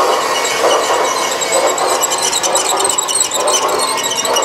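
Battery-operated G scale toy steam train running close by on its track, giving a steady hiss that swells about once a second, with fast fine clicking.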